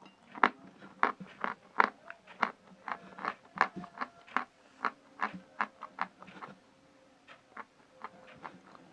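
A person chewing dry Khrapovsky chalk, with crisp crunches about two or three times a second that thin out and grow faint after about six seconds.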